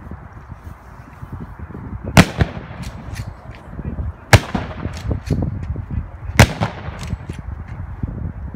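Three-volley rifle salute by a funeral firing party: three loud volleys about two seconds apart, each followed by a few smaller echoing cracks.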